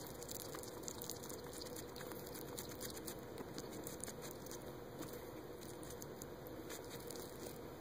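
African pygmy hedgehog chewing a piece of fish fillet: faint, irregular little wet smacks and clicks over a steady hiss.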